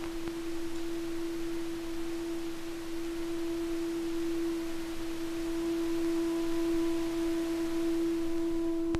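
A single steady, pure electronic tone held without change over a soft hiss, with fainter higher tones joining about two and a half and six seconds in: a sustained drone in the film's soundtrack.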